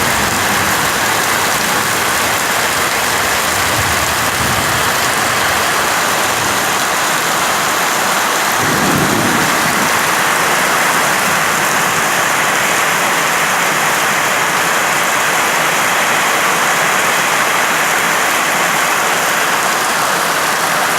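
Heavy rain falling steadily. About nine seconds in there is a brief low rumble.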